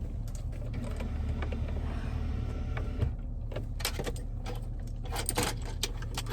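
Car engine idling with a steady low hum, with a run of short clicks and knocks from about halfway through as things are handled around the car.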